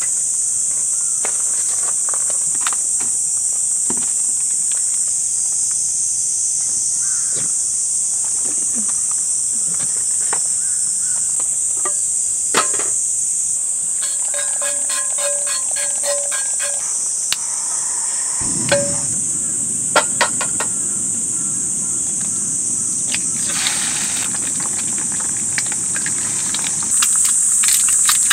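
Steady high-pitched chorus of insects such as crickets, with scattered clicks and knocks of camp cooking gear. About two-thirds through, a low steady rush starts under it, fitting a portable gas burner running under the frying pan, and near the end a brighter hiss fitting an egg frying in oil.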